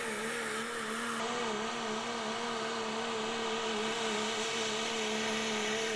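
Hot rod diesel 4x4 pulling truck's engine running hard under load as it pulls the sled, holding a steady high pitch that wavers slightly.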